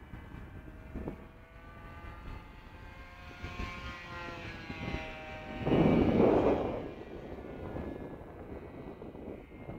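Kyosho Calmato RC model airplane flying overhead, its motor and propeller making a steady tone that rises and then falls in pitch as it passes. About six seconds in, a loud burst of rushing noise lasting about a second covers it.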